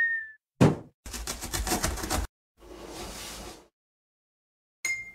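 Cartoon intro sound effects: a sharp thud as a cardboard box lands, a fast rattle lasting about a second, a whoosh, and a click with a brief high ringing tone near the end.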